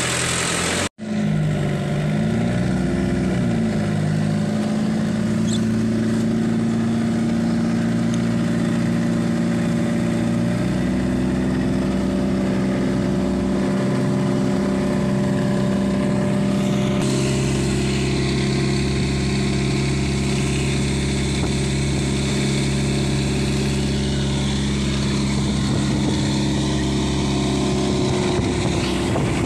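A Mitsubishi 4DR5 four-cylinder diesel inboard drives a flatboat at speed, running steadily under load with water rushing along the hull. After a brief cut about a second in, the engine note rises and falls for a few seconds, then holds steady.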